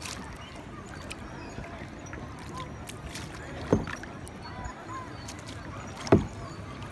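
Kayak paddling: a steady wash of water and paddle noise, with two sharp paddle strikes about a second and a half apart near the middle and end.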